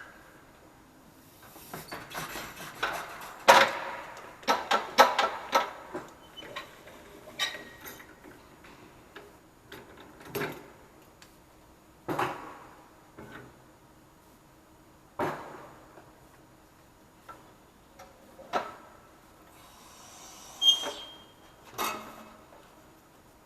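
Irregular metallic clinks and knocks of wheels and parts being handled on a tire balancer, a quick cluster early on and then single knocks every few seconds, with a brief high tone about three-quarters of the way through.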